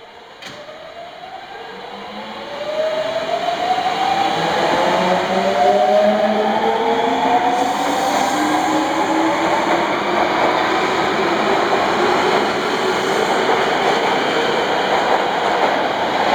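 Osaka Municipal Subway 22-series train pulling out of the station and accelerating. Its traction motors give several whines that climb steadily in pitch over the rumble of the wheels, growing loud over the first few seconds and then holding as the cars pass. There is a brief click about half a second in.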